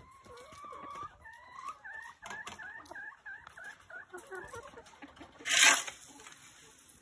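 Laying hens clucking: a drawn-out call, then a run of short repeated clucks, about three a second. A brief, loud rustling burst cuts in about five and a half seconds in.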